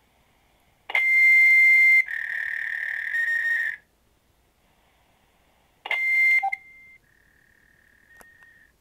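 Repeating electronic tones in a voicemail recording over a phone line. About a second in comes a loud, high steady tone with hiss, which steps down to a slightly lower tone for nearly two seconds. The pattern starts again about six seconds in and trails off into a fainter lower tone near the end.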